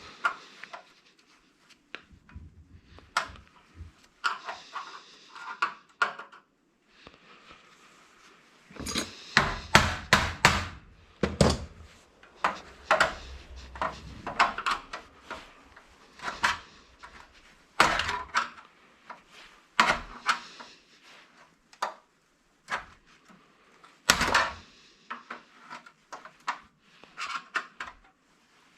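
Hand tools knocking and scraping on a DirecTV satellite receiver as it is taken apart for scrap: a long, irregular string of sharp knocks with a few stretches of scraping.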